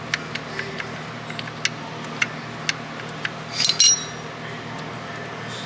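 Scattered light metal clicks and clinks of hand tools and small parts while glow plugs are being removed from a Cub Cadet tractor's diesel engine, with a louder ringing metal clink a bit under four seconds in.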